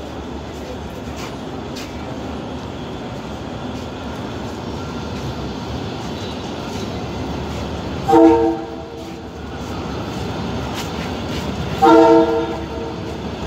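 Abu Qir suburban passenger train running along the line with a steady rumble, its horn sounding two short blasts, one about eight seconds in and one about twelve seconds in. Each blast is a chord of several tones.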